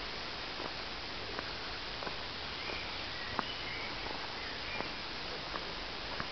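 Footsteps of someone walking a dirt woodland trail, a faint sharp step about every two-thirds of a second over a steady hiss. A few short high bird chirps come in around the middle.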